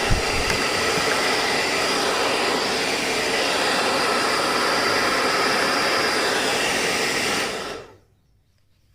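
Hair dryer blowing steadily, drying PCB cleaning spray out of a keyboard button, then switched off and winding down about three-quarters of the way through.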